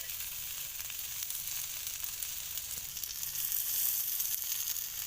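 Vegetables frying in hot oil in a pan: a steady sizzling hiss with faint crackles, a little louder about three and a half seconds in.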